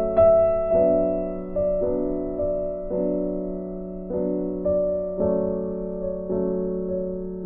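Background piano music: soft chords struck every half second or so, each note ringing and fading.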